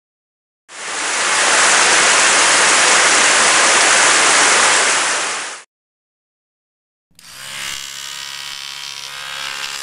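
Shower water spraying steadily for about five seconds and stopping abruptly. After a short silence, an electric toothbrush starts buzzing steadily.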